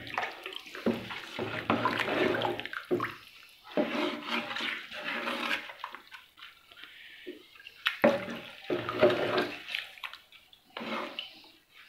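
Water sloshing and swirling as raw chicken, onion and whole spices are stirred with a wooden spoon in a large metal pot of cold water. The stirring comes in uneven swishes with a few knocks, with a lull about six seconds in before it picks up again.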